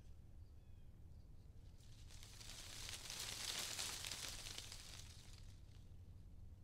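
Faint rustling of tree leaves and branches, swelling for a couple of seconds in the middle and fading again, over a steady low background rumble.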